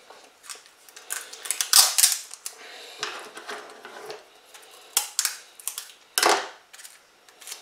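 Clear sticky tape (sellotape) being pulled off the roll and torn, in short crackly strips, with small clicks and taps of handling on a worktop between them; the loudest pulls come about two seconds in and about six seconds in.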